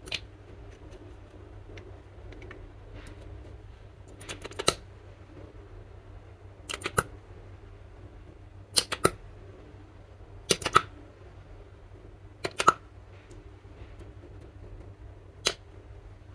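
Slime being pressed and folded by hand, letting out sharp clicking pops, often two or three close together, about every two seconds over a steady low hum.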